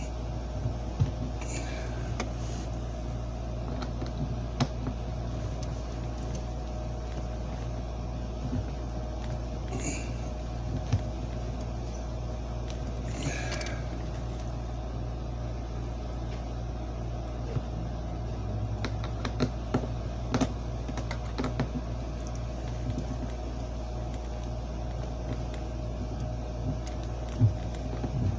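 Scattered small clicks and scrapes of a hand screwdriver working a screw into a wooden strip, over a steady low hum.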